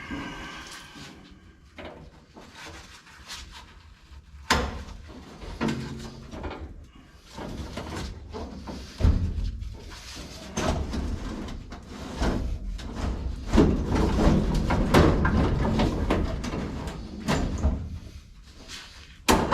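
Irregular metal knocks, clanks and scraping as hand tools work the steel window mechanism inside a 1955 Chevrolet 210 door. Locking pliers are working a binding vent-window crank loose, and the rattling and scraping are busiest through the middle.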